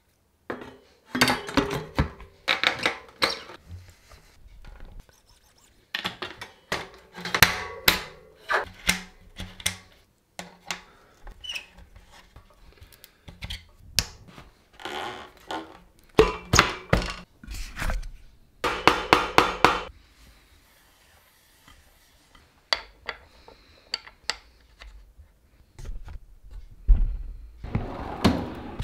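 Clicks, clunks and metallic knocks of parts and tools as wheels are fitted to a mountain bike, coming in several bursts with short pauses between.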